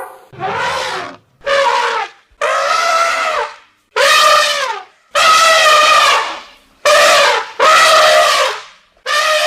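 Asian elephant trumpeting: about eight loud, brassy calls in a row, each under a second or so long, several dropping in pitch at the end.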